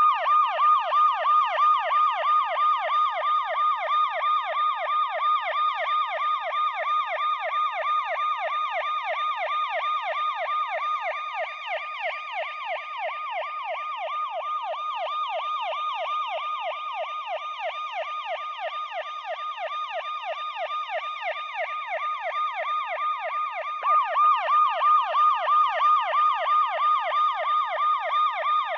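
A siren wailing in a rapid yelp, its pitch sweeping up and down about three times a second. It grows softer a little before halfway and loud again near the end.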